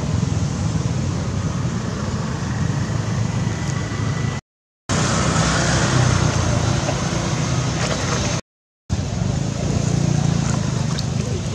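Steady outdoor background rumble and hiss, the kind made by wind on the microphone or distant traffic, broken twice by a brief dead silence about four and a half and eight and a half seconds in.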